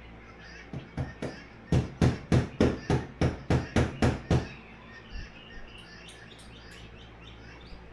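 A hammer knocking: a few light taps, then about ten hard blows in a steady rhythm of roughly three a second, followed by a few faint clicks.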